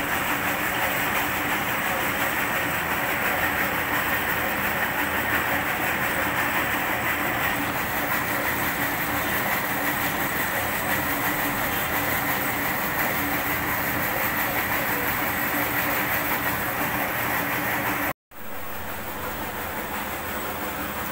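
Milling machine running a carbide fly cutter along a metal bar, cutting grooves: a steady, dense cutting noise over a steady machine hum. It cuts off for a moment about 18 seconds in, then carries on.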